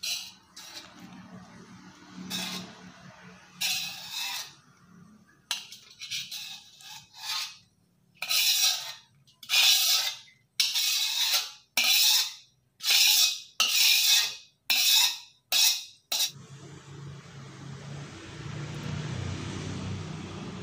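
Metal spatula scraping against a steel wok in over a dozen quick strokes as fried rice is scooped out, the strokes louder and closer together from about eight seconds in. They stop about sixteen seconds in, leaving a steady rushing noise with a low hum.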